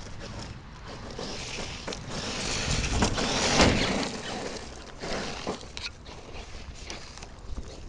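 Homemade electric RC monster truck with a 6S brushless motor driving on loose ground. The noise swells to its loudest about three and a half seconds in, then drops away, with scattered clicks and scrapes.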